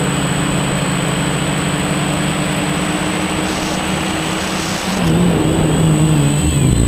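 Quadcopter's electric motors and propellers buzzing at a steady pitch over a rushing hiss. About five seconds in, the pitch starts rising and falling as the throttle changes.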